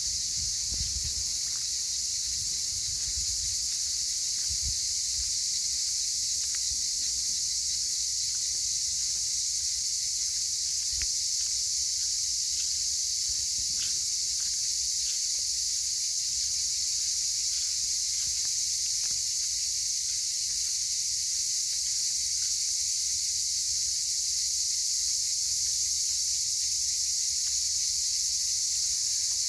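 Cicadas buzzing in a dense, unbroken chorus, with low wind rumble on the microphone in the first few seconds.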